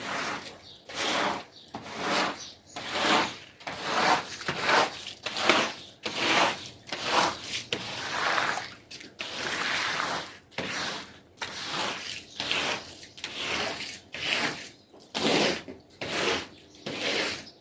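Brush scrubbing a carpet in repeated back-and-forth strokes, a little more than one stroke a second, with one longer stroke about halfway through.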